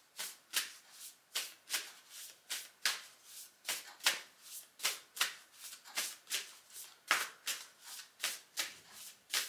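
A deck of oracle cards being shuffled by hand: a steady run of crisp swishes, about two and a half a second.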